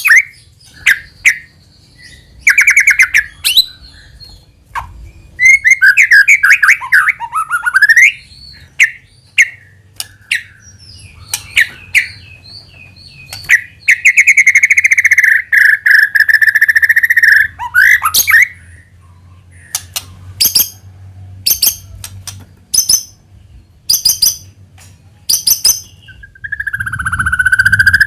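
White-rumped shama (murai batu) singing: quick whistled phrases that sweep up and down, broken by runs of sharp ticking chips, with a long steady whistle in the middle and another starting near the end.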